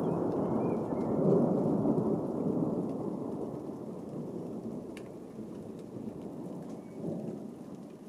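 Thunder rumbling and slowly dying away, with a fresh swell about a second in and another near the end.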